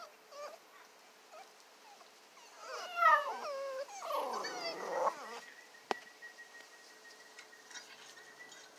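Eight-week-old American Bandogge puppies whimpering, with a quick run of high, wavering yips about three seconds in and then a longer, harsher cry. A single sharp click comes near six seconds.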